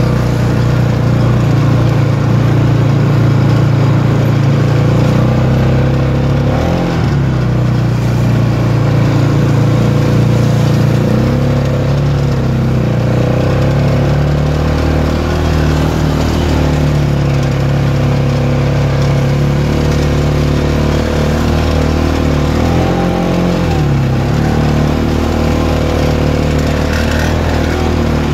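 Polaris 570's single-cylinder engine running under throttle on the trail. The engine note dips and picks up again a few times: around 7, 12 and 23 seconds in, the rider eases off and gets back on the throttle.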